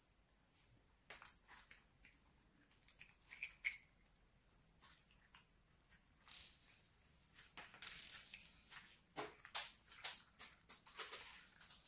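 Hands squeezing and stretching a lump of slime: faint, irregular squishes and small crackling pops, coming thicker in the second half.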